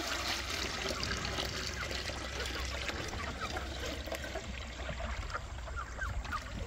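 Water pouring steadily into a chicken waterer as it is refilled.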